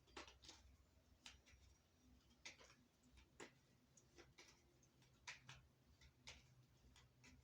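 Near silence with faint, irregular clicks and taps of tarot cards being handled and laid down, about a dozen spread over several seconds.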